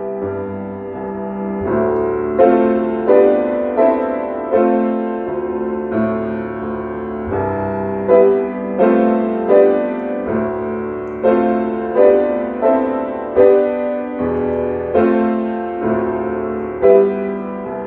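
Solo Yamaha grand piano playing a slow piece, single notes and chords struck about once a second over a held low note.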